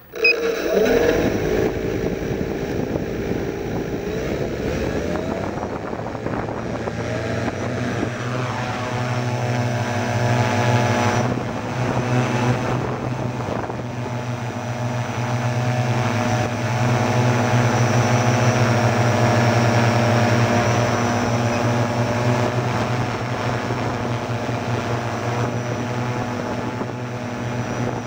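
Quadcopter's electric motors and propellers start up suddenly, rising in pitch about five seconds in as it lifts off. Then comes a steady, many-toned propeller whine as it flies, heard close up from its on-board camera.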